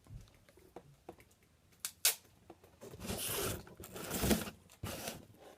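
Handling noise from a homemade cardboard-and-tape toy machine: a sharp click about two seconds in, then rustling and scraping for about a second and a half, and a shorter rustle near the end.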